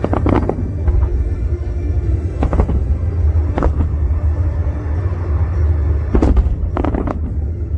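Fireworks bursting, about five bangs spread over several seconds, with music playing and a steady low rumble underneath.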